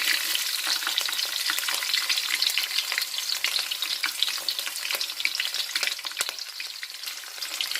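Finely chopped garlic sizzling in hot oil in a kadai, with a tempering of mustard seeds, cinnamon and curry leaves, giving a steady crackling hiss with many small pops.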